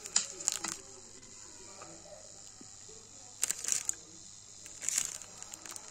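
Loudspeaker driven by an amplifier built around a P12NM50FP MOSFET, giving out short bursts of scratchy crackle over a steady high hiss.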